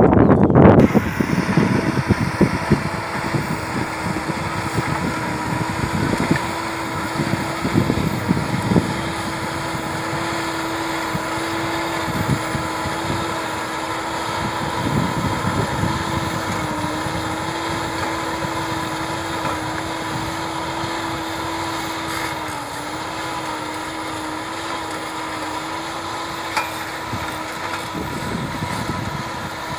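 John Deere tractor's diesel engine running steadily under load as it pulls a soil-working implement across the field, its hum dipping slightly in pitch twice in the second half. Wind buffets the microphone now and then.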